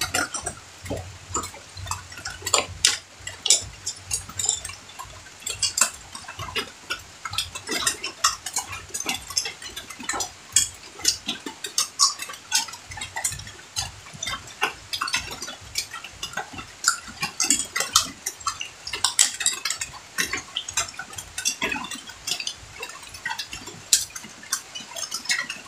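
People eating a meal from plates on a bamboo floor: irregular small clinks and taps of plates and utensils, mixed with eating noises.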